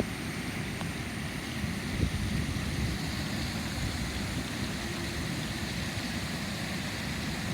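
Waterfall rushing steadily, an even hiss of falling water with a low rumble beneath.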